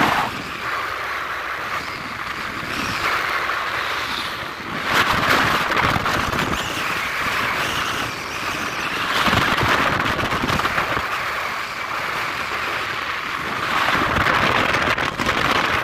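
Wind rushing over a phone microphone, mixed with road noise, while riding in the open back of a moving vehicle at highway speed; it swells and eases in gusts.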